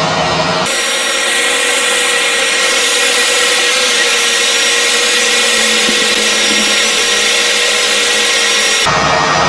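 Hot air rework blower running steadily while it heats a broken SMD capacitor on a tablet motherboard to desolder it: a loud rush of air with a faint steady whine. The sound turns brighter and thinner about a second in and switches back near the end.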